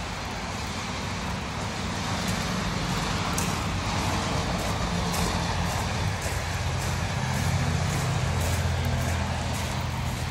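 A motor vehicle engine running steadily, its hum growing louder a couple of seconds in and strongest near the end, with light crunching from footsteps on gravel.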